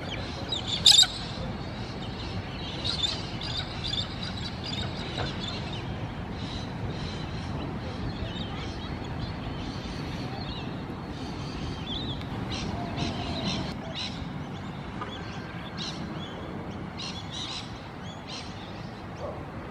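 Birds chirping on and off, loudest about a second in, over a steady low rumble.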